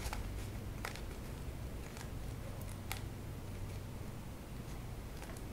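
Tarot cards handled in a fanned deck, giving a few faint clicks and slides as the cards are moved apart, over a low steady hum.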